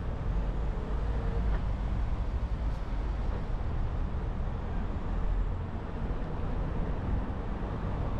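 A car driving through city traffic: a steady low rumble of road and engine noise. A faint whine fades out about a second and a half in.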